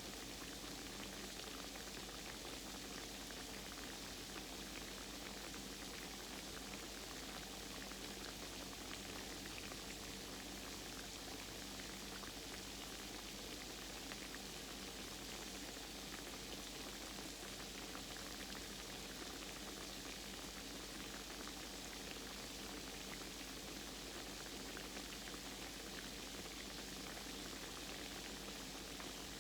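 Croquettes frying in hot grease in a pan: a steady sizzle with fine crackling.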